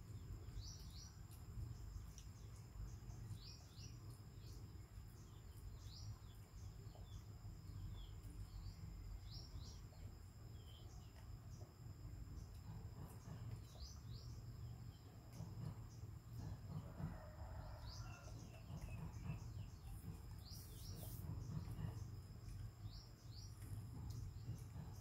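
Small birds chirping faintly: short, high, rising chirps every second or two, over a low steady background rumble.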